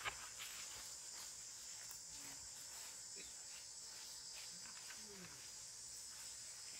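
Steady high-pitched chorus of forest insects, with a faint click near the start and a few faint short low squeaks in the middle.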